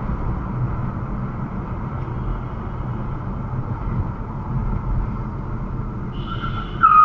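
Steady road and engine noise of a car driving along a highway, heard from inside the cabin. Near the end, a loud, steady, high tone sounds for about a second.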